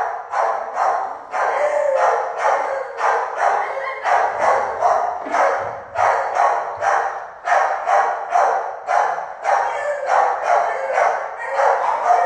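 Shelter dogs barking over and over, about two or three barks a second, without a pause.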